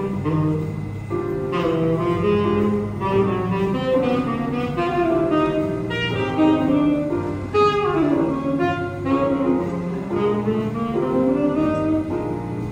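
Saxophone playing a jazz melody, with a quick falling run about eight seconds in.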